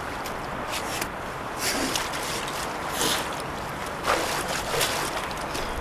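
Loose soil and debris scraping and rustling as a person shifts about in a dirt pit: several short scrapes over a steady hiss.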